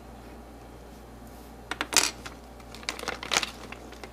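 Small hard-plastic Lego minifigure pieces clicking and clattering as they are handled and pressed together. The clicks come in two short clusters, about two seconds in and again about three seconds in.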